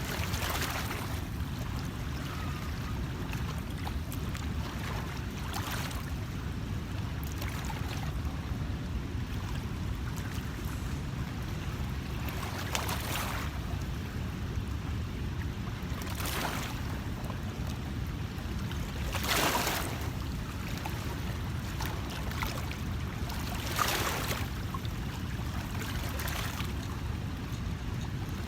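Steady low wind rumble on the microphone with water lapping, and a short swish every few seconds.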